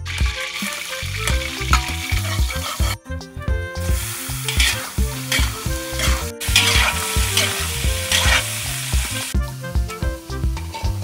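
Pieces of meat sizzling loudly as they fry in hot oil in a large wok, stirred and scraped with a metal spatula. The sizzle breaks off twice and stops about a second before the end.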